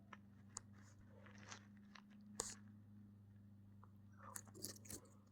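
Slime being handled: faint, scattered small crackles and clicks, with one sharper click about two and a half seconds in and a little cluster near the end, over a low steady hum.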